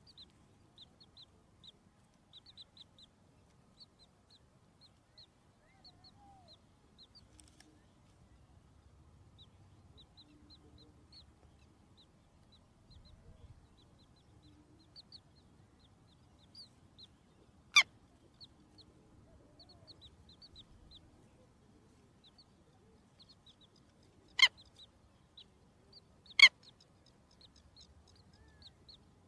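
Hatchling chicks peeping: many short, high cheeps repeating. Three sharp clicks come in the second half, the last the loudest.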